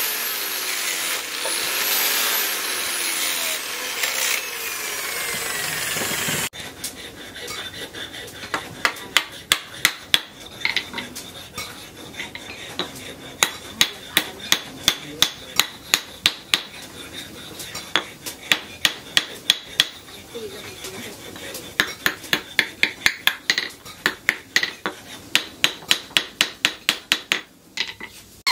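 An angle grinder with a sanding disc grinding down a wooden knife handle, a continuous rasping whine that wavers in pitch. About six seconds in it gives way to runs of sharp, even strikes, two to three a second with short pauses, as a small hatchet knocks on the upright wooden handle set on a metal stake.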